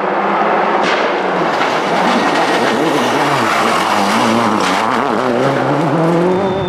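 Ford Focus WRC's 2.0-litre turbocharged four-cylinder rally engine at full throttle as the car approaches and passes, its pitch rising and falling through the gear changes. Two sharp cracks cut through the engine note.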